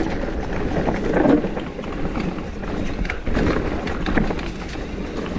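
Mountain bike riding down a forest trail: tyres rolling on dirt, the bike clattering over bumps, and wind rumbling on the microphone.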